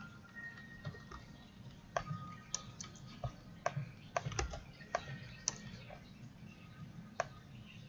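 Computer keyboard typing: irregular, sparse keystrokes as a line of code is entered.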